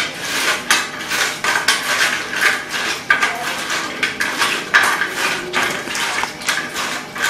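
Hands mixing broken dry roti pieces with curd and spices on a stainless steel plate: irregular crunching and scraping against the metal plate, about two to three strokes a second.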